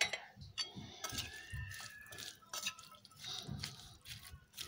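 Spoon stirring chopped vegetables and tuna in a bowl: irregular soft, wet squishing and tapping.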